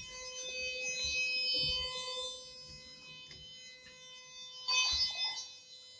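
Otis GeN2 elevator's door nudging buzzer: a steady electronic tone that sounds when the doors have been held open too long and the car goes into nudging mode. A brief rustling noise comes about five seconds in.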